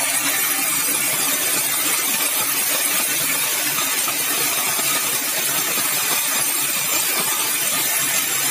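Sawmill saw running steadily through yellow balau (bengkirai) timber, a dense, even noise with a faint low engine hum beneath it.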